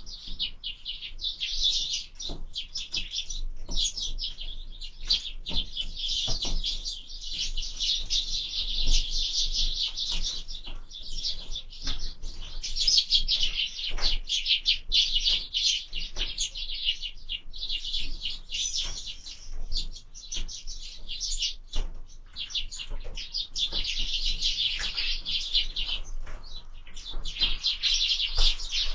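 A flock of sparrows chirping continuously and densely, dozens of short chirps overlapping, with scattered clicks and knocks.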